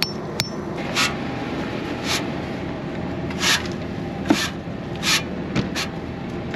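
A series of short scraping strokes, about one a second and somewhat irregular, with a few faint clicks in between.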